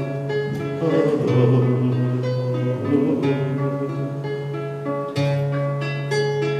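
Acoustic guitar playing alone between sung verses: plucked chords and notes, each left to ring before the next.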